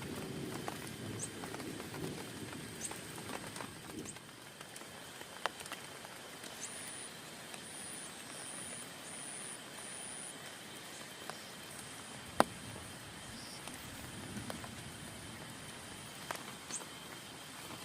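Steady rain on a tent with scattered louder drops tapping, the sharpest about twelve seconds in. A low rumble of thunder dies away in the first second or so, and a faint run of high peeps sounds in the middle.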